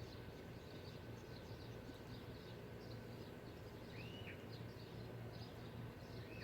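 Outdoor ambience: a steady low hum under faint, repeated bird chirps, with one clearer whistled bird call rising and falling about four seconds in.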